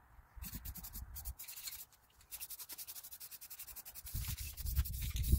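Aerosol spray paint can spraying plastic parts, hissing on and off in many short bursts.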